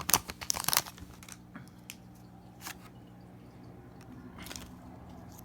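Foil Pokémon booster pack wrapper crinkling for about a second as it is torn open, then a few faint ticks and rustles of cards being handled, over a low steady hum.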